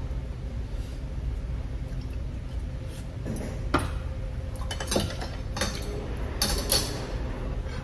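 Metal chopsticks and a spoon clinking against ceramic bowls and a stone pot: a few sharp clinks from about three and a half seconds in, with a cluster near the end. Under them runs a steady low hum of room noise.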